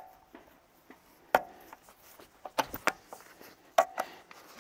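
Hydraulic hose quick couplers being handled on an excavator boom: a few sharp metal clicks and clinks, some with a short ring.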